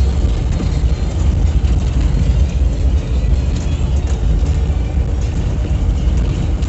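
Hardtop jeep driving on a mountain road, heard from inside the cabin: a steady, loud low rumble of engine and road noise.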